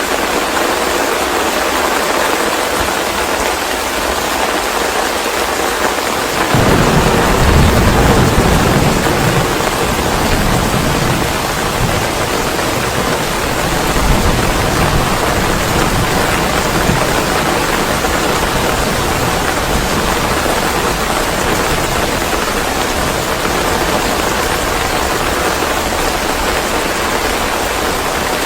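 Steady heavy rain, with a roll of thunder coming in about six seconds in. The thunder rumbles loudest for a few seconds, then fades back under the rain.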